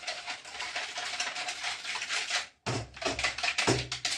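A kitchen utensil beating a runny egg-and-yogurt mixture in a bowl, clattering fast against the bowl's sides. The sound cuts out suddenly a little over halfway and then resumes with heavier knocks.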